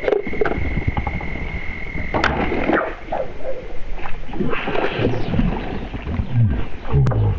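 A hooked crucian carp splashing and churning the water as it is played in on a float rod, with irregular surges of sloshing. In the first three seconds there is also a thin, steady high tone.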